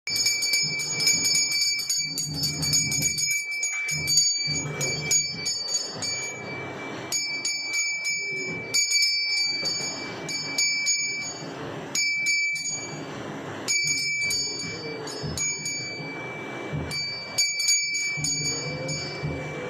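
Brass hand bell (ghanti) rung continuously in puja worship, a clear ringing broken by short pauses every second or two.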